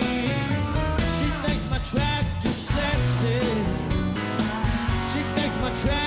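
A country-rock band playing live, with a male lead vocalist singing over drums and electric guitars.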